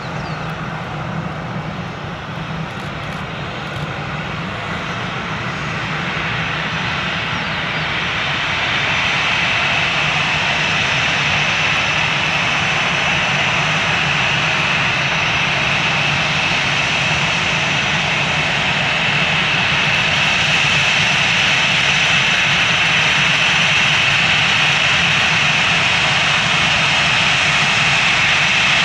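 Jet airliner's engines running, a broad rush with a steady high whine over it, growing louder over the first ten seconds or so and then holding.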